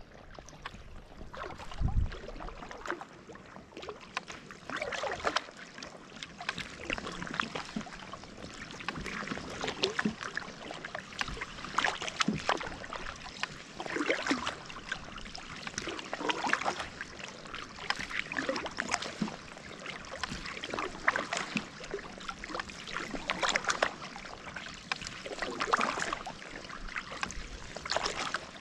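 Sea kayak paddle strokes in calm sea water: the blade dips and splashes, and water dribbles off it, about once every two seconds. A low knock about two seconds in.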